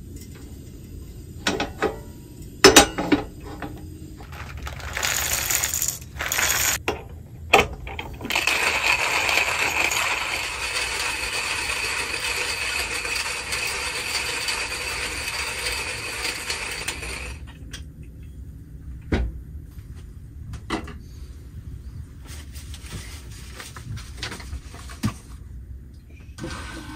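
Scattered clicks and metal clinks of cookware being handled at a portable gas stove, then a steady rasping noise for about ten seconds that starts and stops abruptly, then a few more light knocks.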